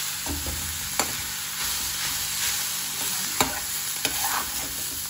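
Red amaranth leaves sizzling as they fry in a kadhai while a spatula stirs and scrapes them, with a few sharp clicks of the spatula against the pan.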